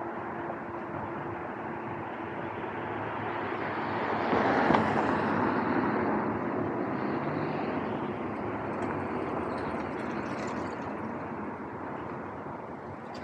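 Street traffic with a car passing close by: the tyre and engine noise swells to its loudest about five seconds in, then slowly fades away.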